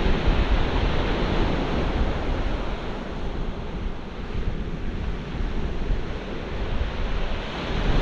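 Sea surf breaking and washing on a pebble beach, a steady rushing noise, with wind buffeting the microphone.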